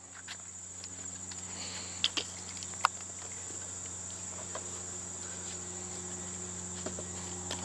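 Insects trilling steadily and high-pitched in the background, with a few light knocks around two to three seconds in.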